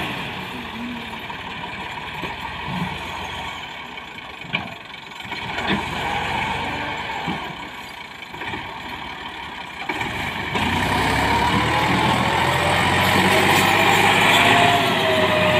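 Massey Ferguson 260 tractor's diesel engine pulling a loaded trolley, at lower revs for the first part with a few knocks, then revving up hard about two-thirds of the way through as the tractor's front wheels lift off the ground.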